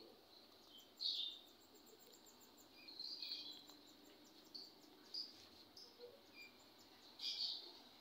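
Hand-reared songbird chicks giving short, high begging chirps at feeding time, a few scattered calls seconds apart, over a faint high ticking.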